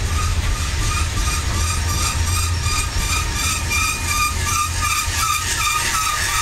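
Coal train hopper cars rolling past at close range: a steady low rumble of wheels on rail, with a short high squeal from the running gear repeating about three times a second.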